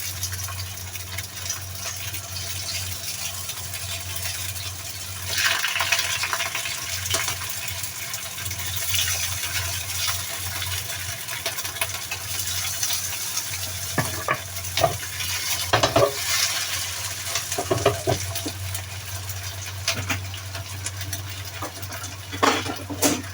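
Food sizzling in a frying pan while being stirred, with a steady low hum underneath. A spatula knocks and scrapes against the pan several times in the second half, with more clatter near the end.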